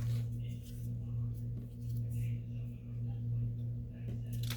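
A steady low hum with a fainter tone about an octave above it, swelling and fading slightly, with faint handling sounds over it.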